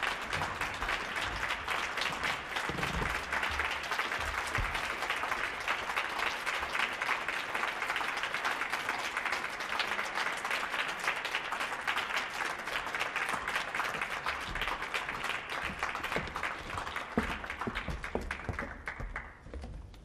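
Audience applause: a dense, steady patter of many people clapping that dies away near the end.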